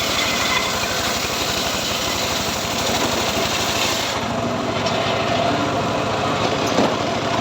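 Homemade engine-driven sawmill running steadily and sawing teak wood: a steady engine with the hiss of the blade cutting. A little over halfway through, the high hiss thins out.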